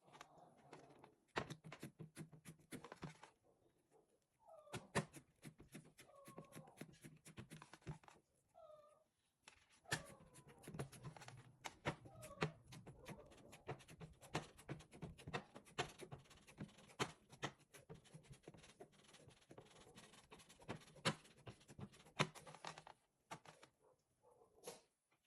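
A cat meowing several times in short calls, over a run of quick clicks and taps.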